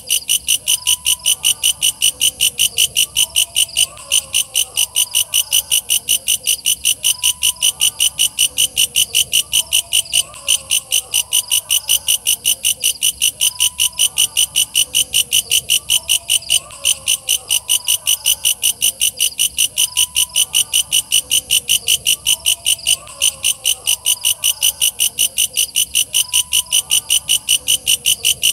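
Walang kecek bush cricket calling: a loud, rapid, evenly spaced train of shrill chirps with no letup. Fainter, lower calls repeat beneath it.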